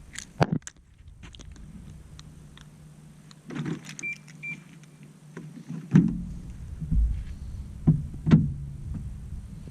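A car being opened: two short electronic beeps, then a door-opening thump about six seconds in and a second thump near the end.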